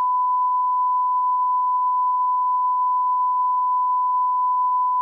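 A steady, unbroken 1 kHz beep tone that replaces all other sound: a censor or redaction bleep laid over the audio track.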